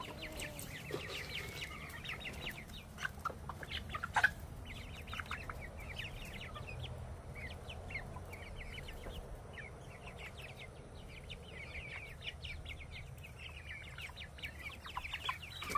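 A flock of young pullets calling constantly, with many short, high-pitched clucks, and one sharp click about four seconds in.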